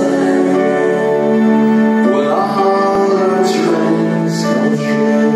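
Slow music: voices singing a melody in long held notes over sustained chords, with no drumming.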